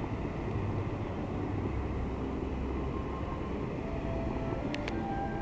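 Steady rushing and low rumble of the Bellagio fountain's water jets spraying, with two short clicks near the end.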